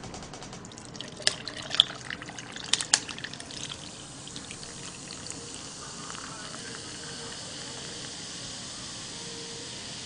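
Carbonated soda pouring from an aluminium can into a glass, a steady fizzing hiss. A few sharp clicks come in the first few seconds, before the hiss settles.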